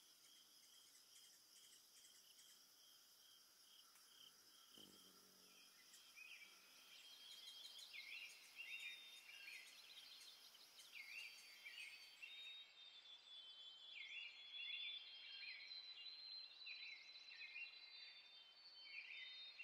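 Near silence with faint high-pitched chirping: a steady run of short pips at first, then chirps repeating about every second and a half from about seven seconds in. A brief low thud comes about five seconds in.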